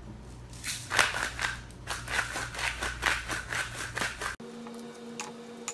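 Hand-held spice mill twisted to grind salt and pepper, a quick run of crunching clicks about five a second that stops abruptly about four seconds in. A steady low hum follows.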